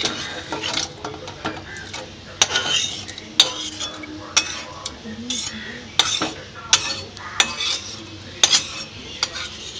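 A spoon scraping and knocking against a pan as cooked vegetables are scraped out into a pressure cooker of dal, with sharp clinks roughly once a second.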